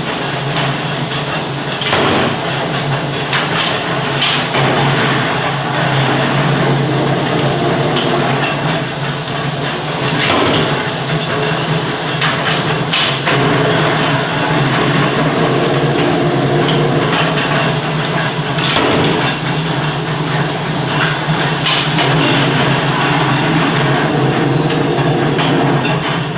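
200-ton mechanical power press running, its flywheel drive giving a steady low hum, with a sharp metallic clank every few seconds. A faint high whine slides downward near the end.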